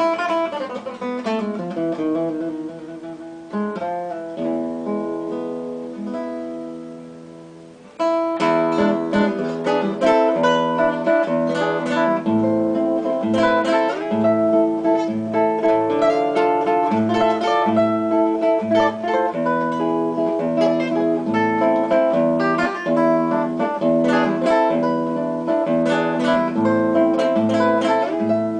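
Background music of plucked guitar. The first passage dies away, and a fuller passage starts abruptly about eight seconds in.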